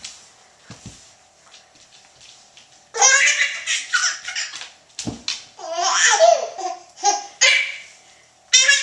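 A baby laughing in high-pitched peals, several bursts of giggling that start about three seconds in after a quiet stretch.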